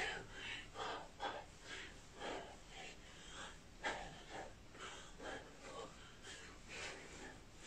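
Faint, sharp exhalations from a man shadow-boxing, one short puff of breath with each punch, about two a second.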